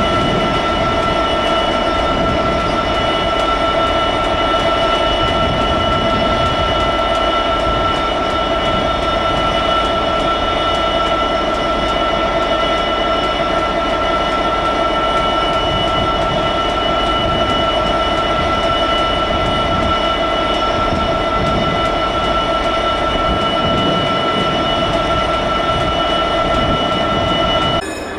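Class 66 diesel-electric locomotive idling, its EMD two-stroke V12 running steadily with a constant high whine over a low rumble. The sound drops abruptly to a quieter level just before the end.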